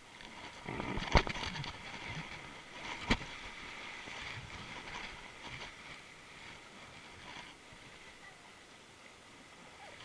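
River rapids rushing and splashing around an inflatable boat, with two sharp knocks, about a second and about three seconds in. The water is busiest in the first half and calms in the second.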